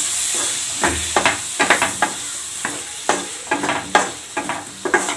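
A spatula stirs and scrapes vegetables coated in freshly added blended tomato around a non-stick kadai over a gas flame. The quick scraping strokes, about three a second, sit over a steady sizzle of the frying masala.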